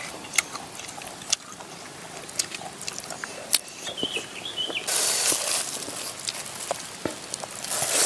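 People eating: chewing and smacking on cooked bird meat, with scattered small clicks. A short high squeak comes about four seconds in, and a steady hiss sets in about five seconds in.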